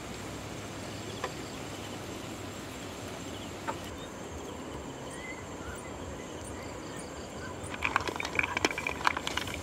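Steady background hiss, then from about 8 seconds in a quick run of loud clattering as snail shells in a metal wok are stirred with a wooden spoon and knock against the pan and each other.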